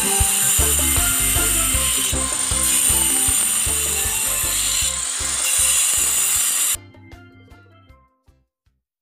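Handheld angle grinder with a cutting disc cutting a groove into a brick wall, a loud, steady grinding that cuts off abruptly about seven seconds in.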